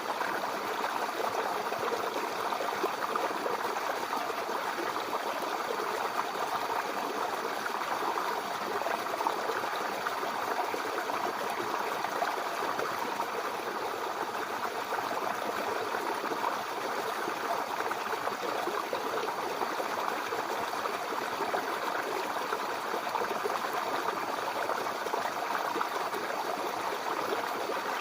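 Small brook flowing over stones, a steady babbling and gurgling of water.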